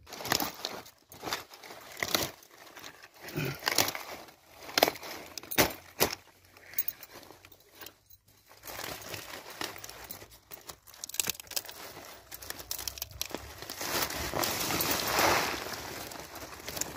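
Cauliflower leaves and stalks being snapped and torn off by hand during harvest, a run of sharp, crisp snaps and crackles. Toward the end comes a longer rustling of leaves.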